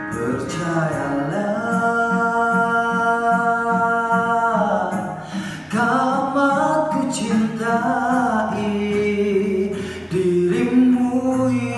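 Slow love song: a solo singer holding long, drawn-out notes over soft backing music.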